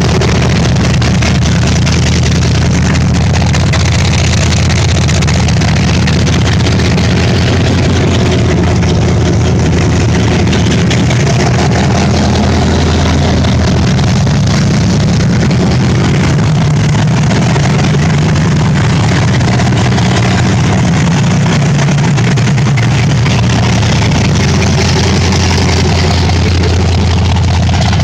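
Carbureted Chevrolet V8 in a Chevy S10 idling loud and steady through open headers, with no mufflers fitted.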